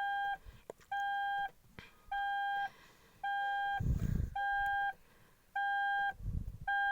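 Electronic alarm beeping steadily: one mid-pitched beep of about half a second, roughly once a second, about seven times. Two dull low thumps fall between beeps in the second half.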